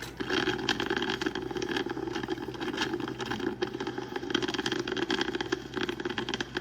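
Mr. Coffee 5-cup drip coffee maker brewing: a steady, dense crackle of rapid irregular clicks and sputters over a hiss.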